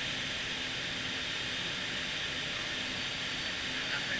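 Steady hiss with a faint low hum from a HOMAG BAZ CNC woodworking processing center running.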